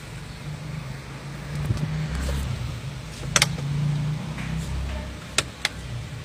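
Low steady rumble inside a car cabin, with a few sharp clicks: a double click about three and a half seconds in and two quick ones near the end.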